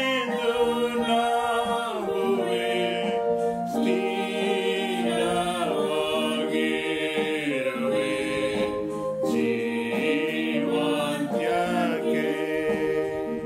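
A woman singing a Kannada Christian hymn in a slow, sustained melody, over long held electronic-keyboard chords.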